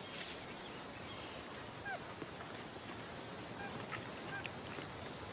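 Tropical forest background: a steady faint hiss with a few short bird calls, one falling chirp about two seconds in and brief calls near four seconds.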